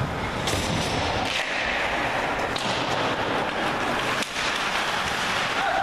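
Ice hockey game sound in a rink: skate blades scraping and carving on the ice in short hissing strokes over steady arena noise, with a sharp knock about four seconds in.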